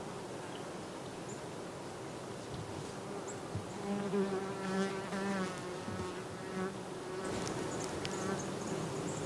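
A flying insect buzzing close by, a steady hum that grows louder and wavers in pitch in the middle as it moves around.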